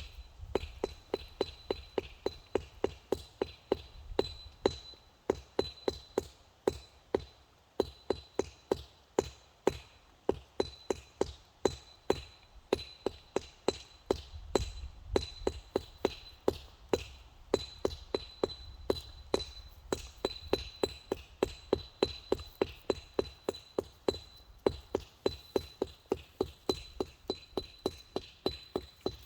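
Stonework: steady, rhythmic hammer blows, about two and a half strikes a second, each a sharp knock.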